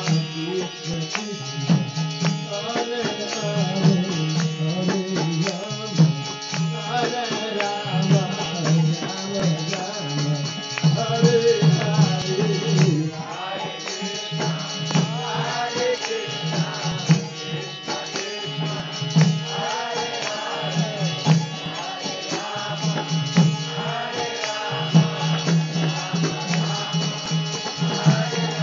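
Devotional kirtan: a man singing to a harmonium's held chords, with a hand drum keeping a steady beat.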